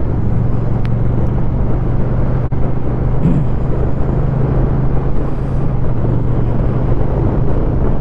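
Honda Rebel 1100 DCT parallel-twin engine running steadily at cruising speed, heard from the rider's seat with road and wind noise. The sound cuts out very briefly about two and a half seconds in.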